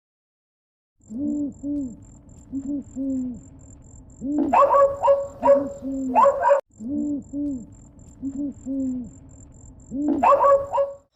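Owl hooting, starting about a second in: a run of short, low hoots, with louder, higher calls about four and a half seconds in and again near the end.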